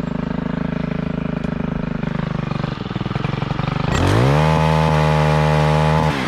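Gas chainsaw idling, then revved up to full throttle about four seconds in and held for about two seconds before dropping back to idle near the end, as used for cutting limbs while raising a tree.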